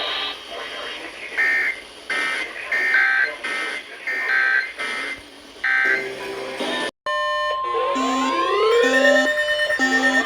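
Emergency alert broadcast tones: a string of short electronic bursts, a brief cut to silence about seven seconds in, then repeating rising siren-like sweeps over a steady tone.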